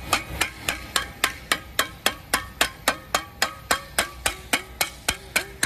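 A metal pan banged repeatedly in a steady beat of about four strikes a second, each hit ringing briefly: protest pot-banging close to the microphone.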